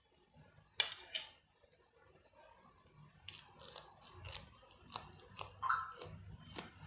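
A person eating spicy Maggi noodles close to the microphone: two sharp crunchy bites about a second in, then a run of short wet chewing and mouth clicks.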